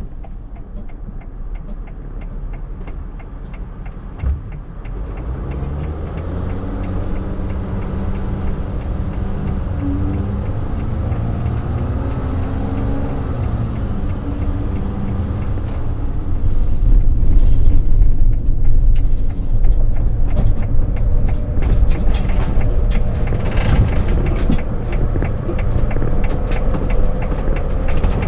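A 24-foot motorhome's engine and road rumble heard from inside the cab while driving. The engine note rises as it accelerates a few seconds in, and in the second half the noise grows louder and rougher, with rattling.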